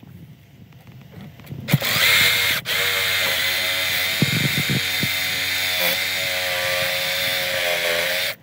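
Cordless reciprocating saw cutting out rotted wood sill plate. It starts a little under two seconds in and then runs steadily at full speed with a whine, with a few low knocks as the blade works in the cut.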